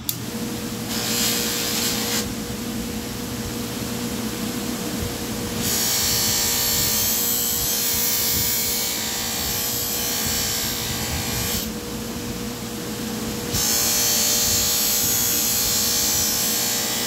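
Electric buffer running with a steady hum while a knife edge is pressed against its wheel loaded with black buffing compound, giving three stretches of louder hissing rubbing. The buffing strips off the burr raised by a 120-grit sanding belt.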